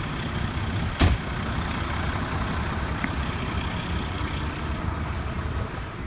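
A fire engine's engine idling with a steady low rumble, with wind buffeting the microphone. A single sharp knock about a second in.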